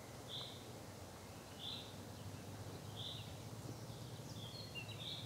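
A bird repeats a short, high note about once every second and a half. Near the end, quick twittering chirps join in. Under it runs a faint, steady low rumble.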